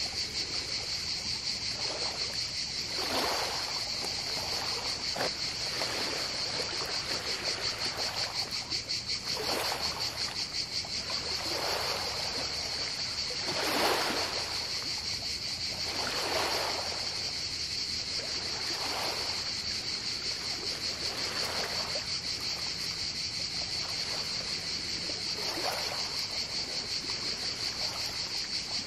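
A steady, high, rapidly pulsing insect chorus, crickets, with small waves washing onto a pebble shore every two to three seconds.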